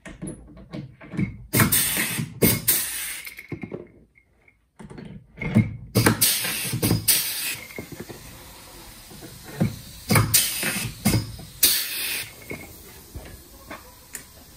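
Rivet gun setting blind (pop) rivets through the Dacron rib tapes of a fabric-covered aircraft wing: several loud bursts a few seconds apart, each lasting about half a second to a second, with small clicks between as rivets are handled.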